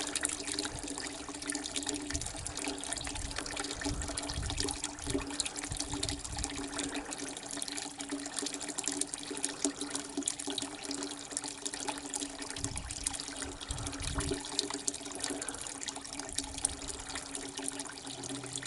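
Toilet flush water running out of the open end of a sewer drain pipe into a bucket, a steady trickling pour. The flow is weaker on this latter part, a sign that not all of the flushed load has come out yet. A steady low hum runs underneath.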